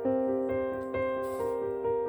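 Background music: a gentle piano melody, notes struck about every half second and left to ring.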